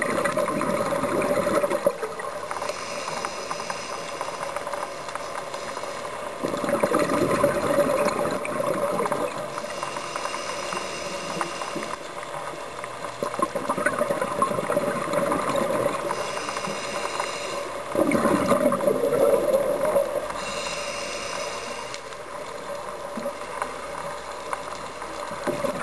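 Scuba diver's exhaled bubbles gurgling and rumbling past the underwater camera in swells every six or seven seconds, with a quieter hiss from the breathing regulator between them.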